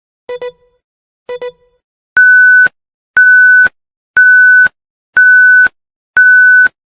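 Countdown timer ticking once a second, two short double-clicked ticks, then five loud, steady, half-second electronic beeps one second apart counting off the final seconds to zero.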